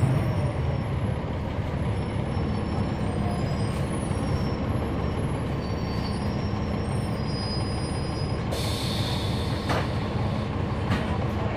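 Inside a 2011 NABI 416.15 transit bus, its Cummins ISL9 diesel engine runs with a steady low drone. About eight and a half seconds in, a burst of compressed-air hiss from the bus's air system lasts about a second, followed by two sharp clicks.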